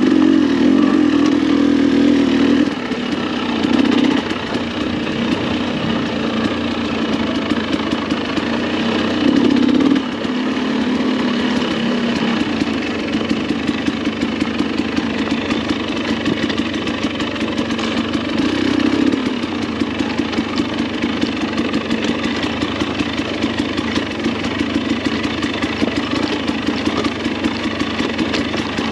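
Dirt bike engine running under changing throttle on a single-track trail, with several short, louder bursts of throttle.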